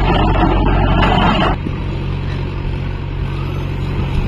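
Mahindra 575 DI 45 hp diesel tractor running steadily with a 36-blade rotavator churning soil. About one and a half seconds in, the loud churning noise drops away abruptly while the engine keeps running.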